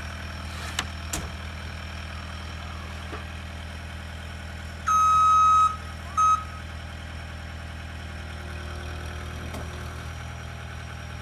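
Engine of the vehicle towing the shed running steadily at low speed. Partway through, a loud high beep lasts almost a second, followed by a short second beep.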